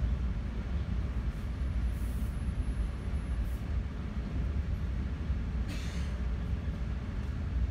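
Steady low rumble of a Bombardier MultiLevel passenger car running on the rails, heard from inside the car, with a brief hiss about six seconds in.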